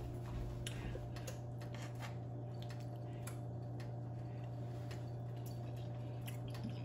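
Steady low hum with faint, scattered small clicks and ticks.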